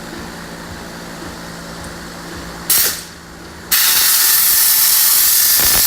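Pneumatic air tool, likely an air ratchet, used to refit a brake caliper: a short blast of air hiss, then a loud, steady hiss of running compressed air from a little before halfway in. A steady low hum underlies the start.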